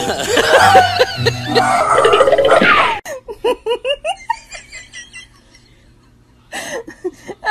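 A loud stretch of mixed sound that cuts off about three seconds in. Then a young woman laughs in quick repeated bursts that fade away, with one more burst near the end.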